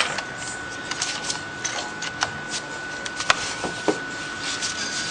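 Handling noise from a ThinkPad T400s laptop: scattered small plastic clicks and knocks as a hard drive is slid into its side bay and the machine is lifted and turned over. A faint steady high whine runs underneath.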